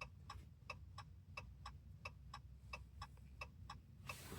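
Hazard-light flasher ticking faintly in a 2014 Ram pickup, about three even clicks a second.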